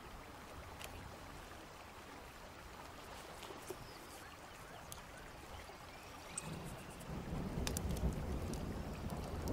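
Faint open-air noise with a few scattered light clicks, then from about two-thirds of the way in a louder low rumble with crackling as the wood fire burns in the brick dome oven.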